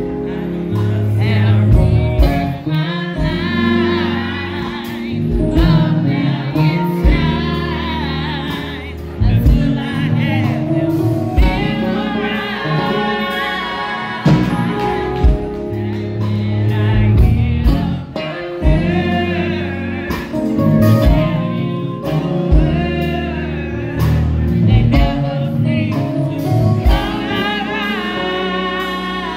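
Live band playing: electric bass guitar, drum kit, Yamaha MOX keyboard and electric guitar, with a wavering lead melody over a steady bass and drum groove.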